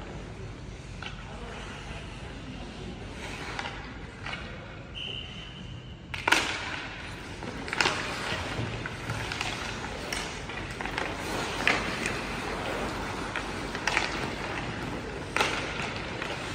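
Ice hockey play in an echoing indoor rink: about six sharp cracks and clacks of sticks and puck, the loudest about six seconds in, over skate blades scraping on the ice. A short steady high tone sounds about five seconds in.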